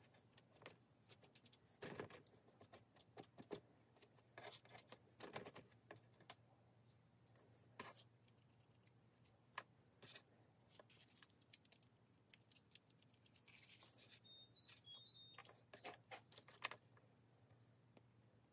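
Near silence with faint, irregular soft taps and rustles: a makeup sponge dabbing grey acrylic paint onto a small scored model stone wall.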